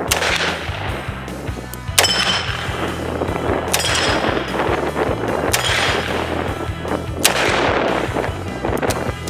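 Revolver fired in slow deliberate shots, about one every two seconds, each with a short echo, over background music.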